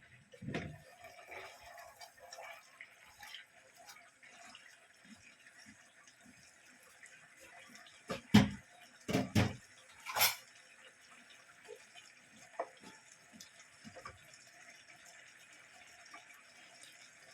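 Quiet kitchen sounds: a faint trickle of water with a thump near the start and a few sharp knocks, loudest in a cluster about eight to ten seconds in.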